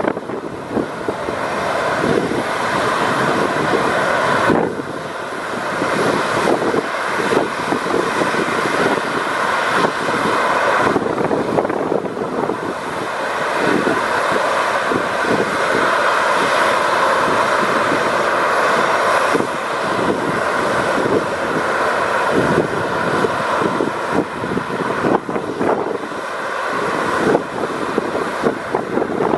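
Airbus A321neo's Pratt & Whitney geared turbofan engines as the airliner climbs away after takeoff: a steady jet rumble, with irregular low buffeting underneath.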